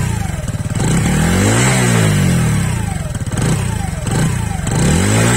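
Exhaust note of the Keeway SR125's 125cc air-cooled single-cylinder four-stroke engine, running and blipped repeatedly: the pitch rises and falls about two seconds in, gives two short blips around three and a half to four seconds, and climbs again near the end.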